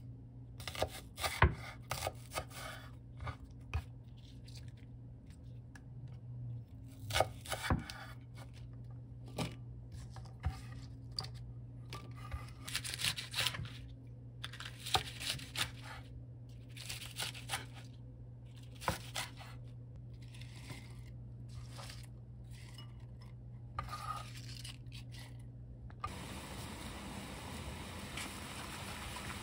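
Kitchen knife slicing and splitting green garlic stalks on a wooden cutting board: irregular taps of the blade on the board and crisp scraping cuts through the stalks. Near the end it changes to a pot of water bubbling steadily at a rolling boil.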